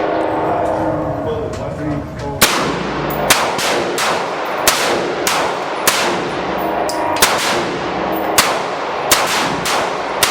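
A rapid series of about ten gunshots at a shooting range, starting about two and a half seconds in and coming roughly every half second to second, each with a ringing tail.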